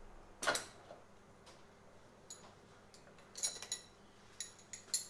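Wrenches on the fuel line fitting of a K-Jet fuel pressure regulator as the 12 mm line nut is loosened: a sharp click about half a second in, then scattered light, ringing metal clinks.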